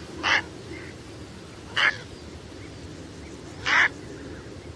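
Three short animal calls, spaced a second and a half to two seconds apart, over a low steady background.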